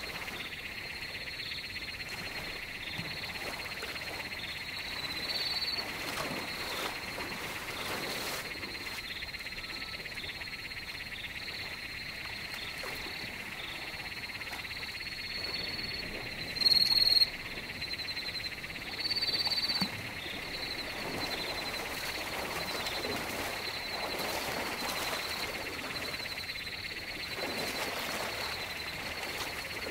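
A steady, high-pitched chorus of calling frogs and insects, with two short, louder high calls a little past the middle.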